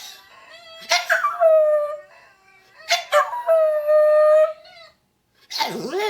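Chihuahua howling: two long, steady howls, each opening with a sharp yip, then a shorter wavering howl near the end.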